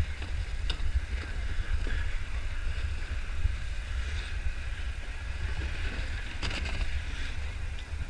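Steady, fluttering low rumble of wind on the microphone and a conveyor lift carrying snow-tubers uphill, with a couple of faint clicks.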